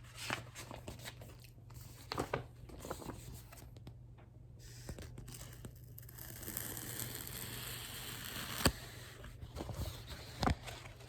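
Faint handling of a paper picture book: pages rustling and crinkling as it is turned and held up, with scattered small clicks and a longer stretch of rustling about two-thirds of the way in.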